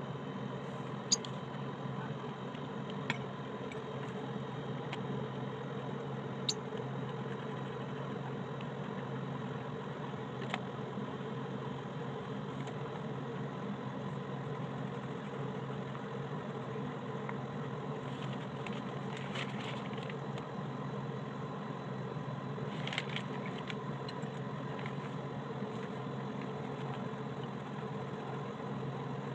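A steady machine-like hum with a faint high tone. Over it, colored-pencil strokes scratch faintly on paper in short clusters, with a few light ticks of the pencil.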